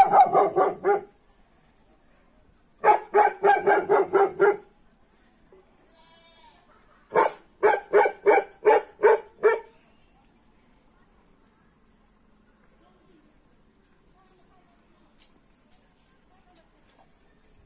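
An animal calling in three quick series of short calls, seven or eight calls in each, about three a second; the third series ends a little before halfway.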